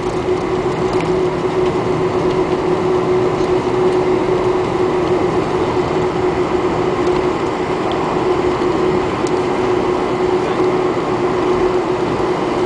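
Steady cabin noise inside a Boeing 747-400 on the ground after landing: an even drone with one constant hum tone through it.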